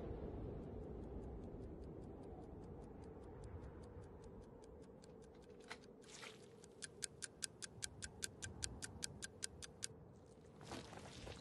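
Dramatic clock-like ticking, about five ticks a second, over a low steady drone. The ticking is faint at first, grows louder in the second half and stops about ten seconds in. Near the end a boot squelches down in wet mud.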